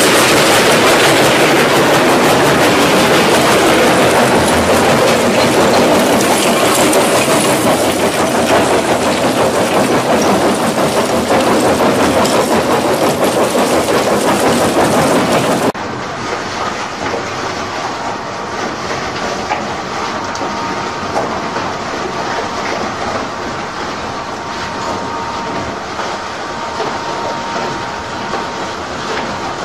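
Industrial crushing machine grinding and clattering through material with a loud, dense, continuous noise. About halfway through it cuts abruptly to a quieter, duller machine noise with a faint steady hum.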